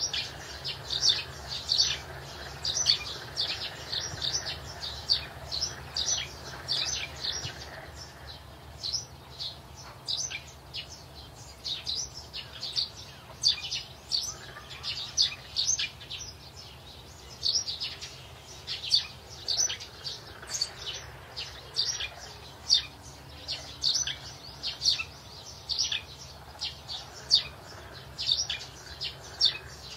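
Small birds chirping: short, high chirps in quick, irregular runs, over a faint low steady hum.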